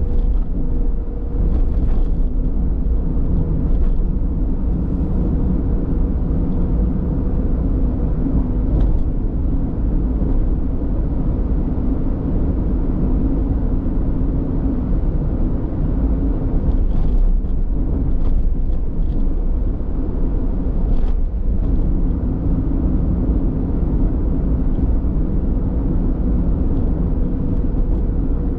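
A car driving along a road: steady engine and tyre rumble with a constant low hum.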